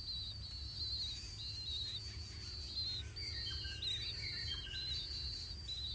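Birds chirping: high, rapid warbling phrases repeated one after another, with a few lower notes mixed in, over a steady low rumble.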